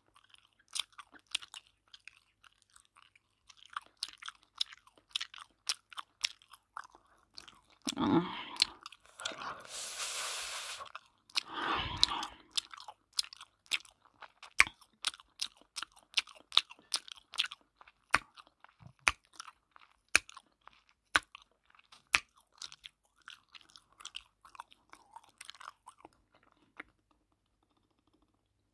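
Close-up crackling and rustling of hair being handled and pressed into place around a donut bun, a thick run of sharp little crackles throughout. A few longer rubbing sounds break in, with a bright hiss lasting about a second and a half around ten seconds in.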